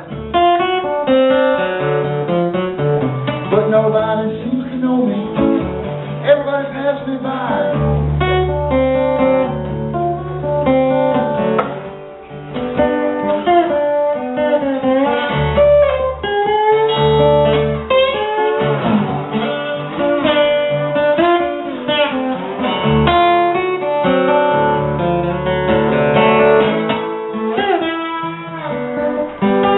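Acoustic guitar played solo and live: a picked melody moving over held low bass notes.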